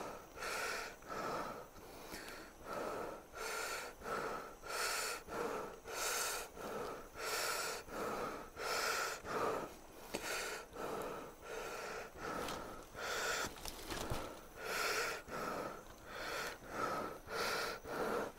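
A person breathing hard and fast through a KF94 mask inside a plastic garbage-bag hood, about one and a half breaths a second, in a steady rhythm: the deep-breathing exercise of a mask fit test.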